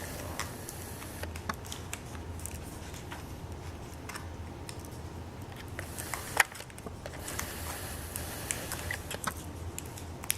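Small clicks and taps of hands working the laptop display's cable connector as it is plugged in, with one sharper click about six seconds in. A low steady hum runs underneath.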